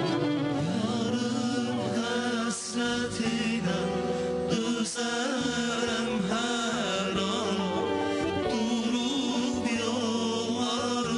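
Male vocal group singing a song live over a band's accompaniment, with long held, wavering notes.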